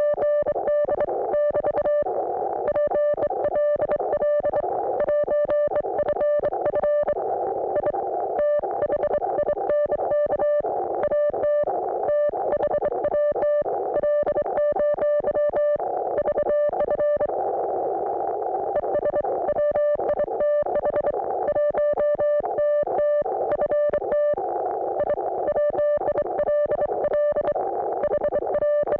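Morse code (CW) signal heard through an Icom IC-718 ham receiver: a steady tone near 600 Hz keyed rapidly in dots and dashes over a band of hiss, with short breaks between groups.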